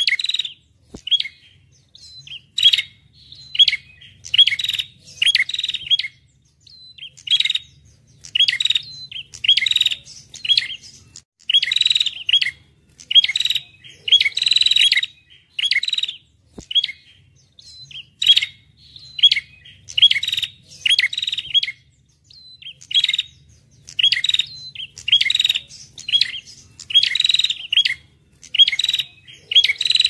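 Small songbird singing loud bursts of sharp, rapid chirps, about one burst a second with short gaps between, as in a songbird tutor (masteran) recording.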